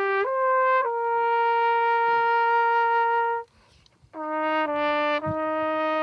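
Solo trumpet playing a slow melody: two short notes climb into a long held note. A short breath pause follows about three and a half seconds in, then a new, lower phrase of held notes.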